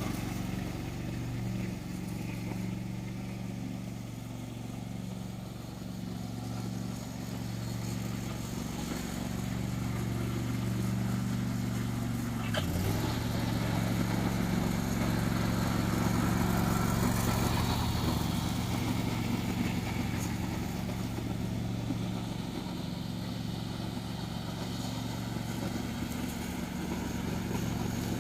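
John Deere D130 lawn tractor engine running steadily, with a brief dip in its note about halfway through.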